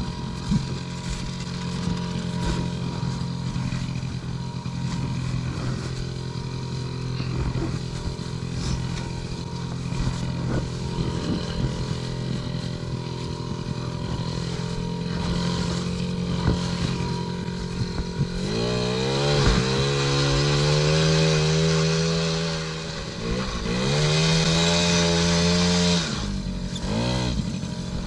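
Small 50cc two-stroke engine of a kids' ATV running steadily at low revs. About two-thirds of the way through it revs up, dips briefly, revs up again, then drops back to a lower steady note.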